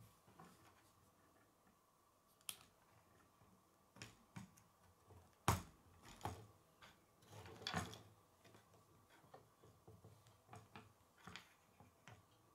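Plastic K'nex building pieces clicking and rattling as they are handled and snapped together, with a few scattered clicks. The sharpest comes about five and a half seconds in, and a short rattle follows around eight seconds.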